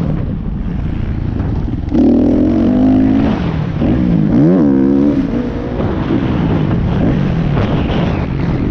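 Kawasaki KX450F's single-cylinder four-stroke engine heard from on the bike as it is ridden, its revs climbing and dropping as the throttle is opened and shut, with a sharp rise about two seconds in and another dip and climb around the middle.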